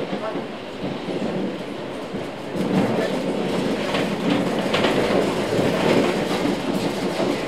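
Tram running along street tracks: steady wheel-and-rail rumble with scattered clicks over the rails, growing louder about two and a half seconds in.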